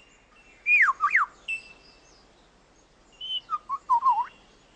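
Superb lyrebird singing clear whistled notes: two quick down-sweeping whistles about a second in and a short held note, then a cluster of short warbling notes near the end.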